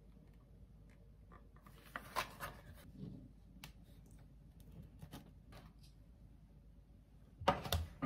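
Quiet handling noises: light clicks and scrapes as a cream-frosted cake is moved onto a metal baking tray on a table, with a louder burst of handling noise near the end.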